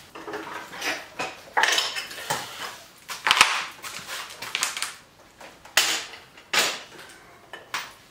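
Metal clanking, rattling and scraping as a heavy DeWALT 12-inch sliding compound miter saw is carried and set down onto the steel rails of a rolling miter saw stand. A series of irregular knocks, the loudest about three seconds in, and a few sharper single knocks near the end.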